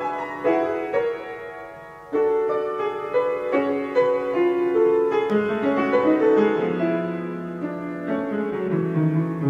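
Intro theme music played on piano, a flowing run of notes and chords. About a second in, one chord is left to die away, and the playing picks up again about two seconds in.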